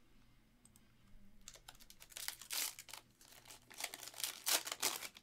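Foil wrapper of a Panini Donruss basketball hobby pack crinkling and tearing as it is ripped open by hand: a quick run of crisp crackles that starts about a second and a half in.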